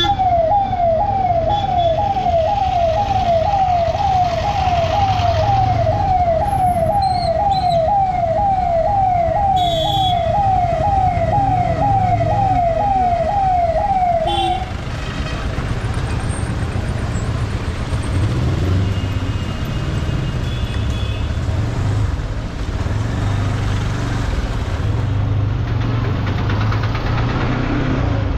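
A siren sounding in quick, repeated falling yelps, about two a second, over the steady rumble of a motorcycle engine and street traffic. The siren stops about halfway through, leaving the engine and traffic noise.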